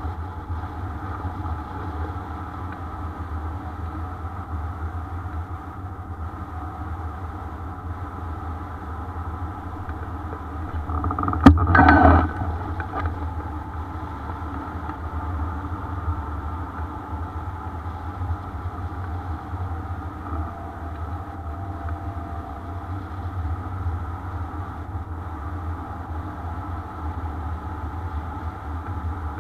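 Wind noise on a camera mounted on a hang glider in flight: a steady rush of airflow, with a sharp click about eleven seconds in followed by a brief louder gust.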